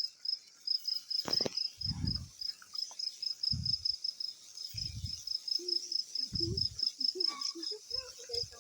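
Crickets chirping steadily, a rapid high pulsing at about five chirps a second. A click comes about a second in, and several short, dull low thumps are scattered through.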